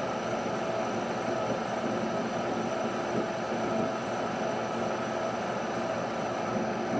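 Bridgeport milling machine spindle running steadily, with a small drill bit cutting a hole in a metal crosshead.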